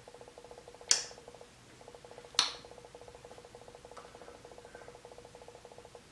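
Two sharp taps about a second and a half apart, over a faint, rapid, even buzz that breaks off briefly twice.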